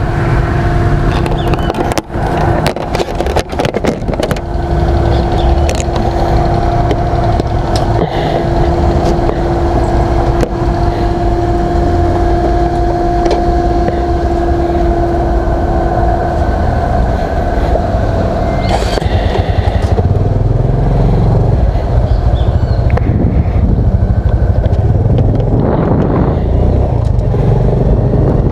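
Honda Biz 125 motorcycle engine running as the bike is ridden along, with heavy wind rumble on the mic. A few sharp knocks near the start fit the under-seat compartment being shut.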